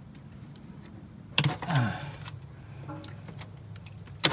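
Small sharp clicks and knocks from handling a metal flasher relay and pulling the wire spade connectors off its terminals, the loudest click near the end.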